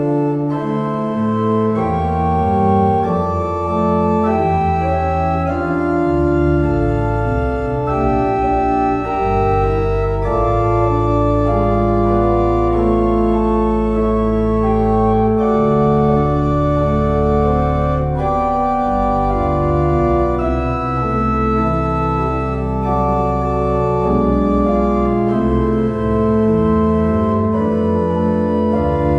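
Organ music closing the service: slow, sustained chords that change every second or two over long-held bass notes.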